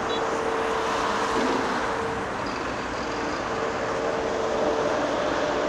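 Liebherr R 938 crawler excavator digging: a steady engine drone with a thin whine that cuts in and out.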